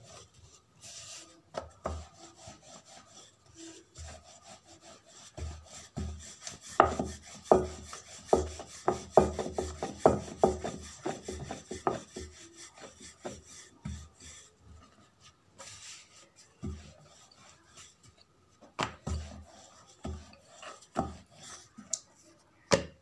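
Wooden rolling pin rolling out dough on a wooden board: rubbing with many short knocks of the pin on the board, coming thick and fast in the middle stretch and sparser towards the end.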